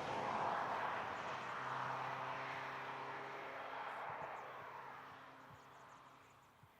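Street car running up a hillclimb course at speed: a rush of engine and road noise that peaks as it passes, then a steady engine note that fades as the car pulls away up the hill.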